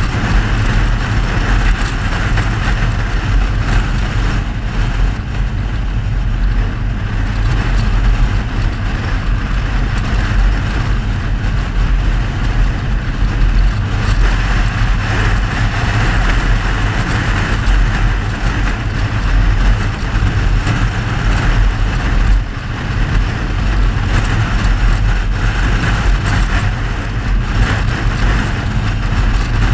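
Mercedes-Benz W126 on the move: steady engine, tyre and wind noise of a car cruising, with a deep rumble under a broad road hiss.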